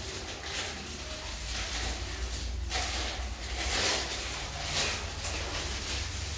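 Plastic packaging and gloves crinkling and rustling in several bursts as sterile supplies are unwrapped and handled, over a steady low hum.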